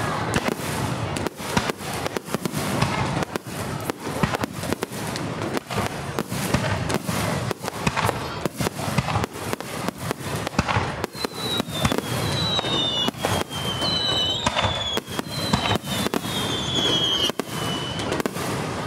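Fireworks display in a rapid barrage: aerial shells bursting one after another in a dense run of bangs and crackling. Over the second half, several high whistles slide down in pitch.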